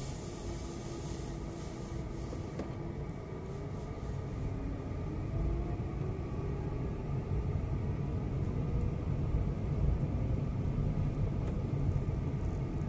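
Car driving: a steady low rumble of engine and road noise, with a faint engine tone that rises and falls as speed changes, growing a little louder from about halfway.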